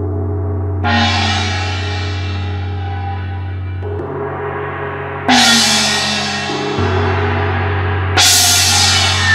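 Gongs struck with a mallet three times, each stroke swelling into a shimmering wash that slowly fades, the middle one with a slightly sinking pitch. A steady low drone sounds beneath them.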